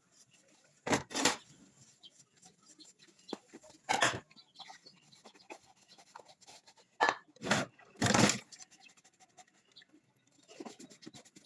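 Kitchen clatter: a handful of sharp knocks and clunks, like dishes and pans being handled and set down while washing up, spread across the stretch with quieter pauses between.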